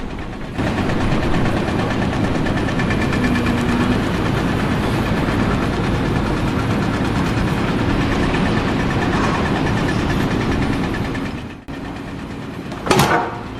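A motor engine running steadily, cutting off abruptly a little before the end, followed by a short loud burst.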